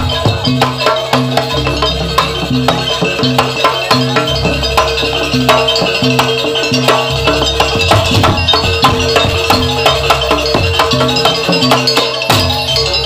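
Live jaranan barong ensemble music: drums, gongs and other percussion playing a steady, busy rhythm over a held tone, with a low pitched beat repeating about twice a second.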